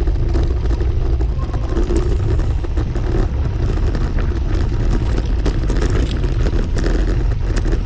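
Mountain bike ridden fast over a bumpy grass-and-dirt trail: wind buffeting on the microphone, with quick knocks and rattles from the bike as it runs over the rough ground.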